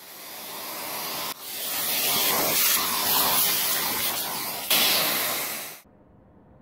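Numatic George wet-and-dry vacuum cleaner running, its nozzle sucking debris off a workbench: a loud, even rushing hiss that builds over the first couple of seconds, jumps up twice, and cuts off abruptly near the end.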